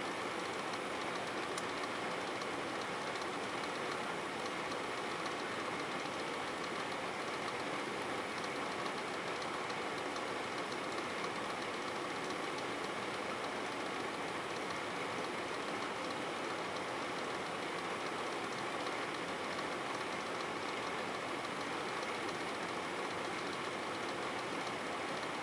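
Steady, even background hiss with no distinct clicks or other events.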